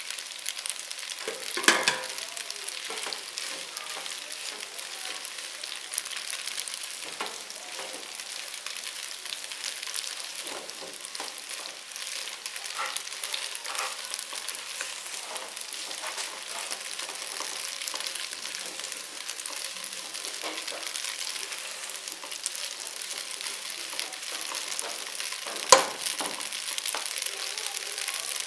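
Macaroni with chicken, capsicum and carrot sizzling in oil in a pot while being stirred and tossed, a steady hiss. A utensil knocks against the pot now and then, sharply about two seconds in and again near the end.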